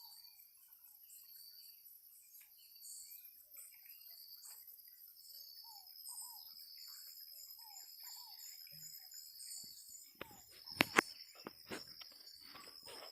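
Thicket ambience: insects chirping in a steady, high, pulsing chorus, with short falling bird calls now and then. About ten seconds in comes a cluster of sharp clicks or knocks, the loudest sounds.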